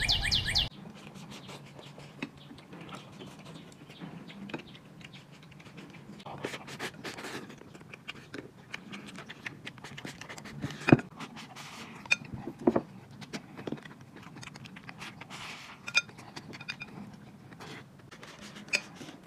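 Close-up eating sounds: chopsticks clicking and scraping against a plate of rice, with mouth noises from chewing. The taps come irregularly, with a few sharper ones.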